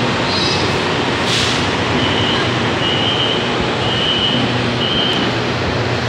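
Steady noise of a stopped LRT train and station platform, with a short hiss about a second in, then four short high electronic beeps about a second apart: the train's door warning tone before the doors close.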